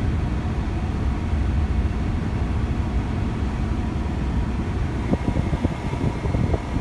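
Steady low rumble of road and engine noise heard from inside a moving vehicle's cabin while driving. A few faint knocks come near the end.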